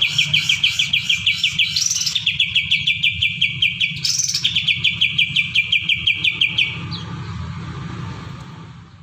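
Green leafbird (cucak ijo) singing fast trills of repeated sharp notes, about eight a second, in phrases of about two seconds, each opened by a quick rising note. The song stops about seven seconds in, leaving a low hum that fades out.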